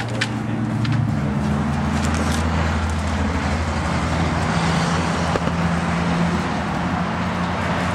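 Steady low drone of road traffic and vehicle engines, with a few held low pitches that shift slightly about a second in and again around four seconds in.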